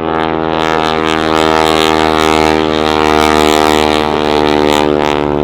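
Boeing Stearman biplane passing, its radial engine and propeller running with a steady many-toned drone. It grows louder to a peak a little past the middle, then eases slightly.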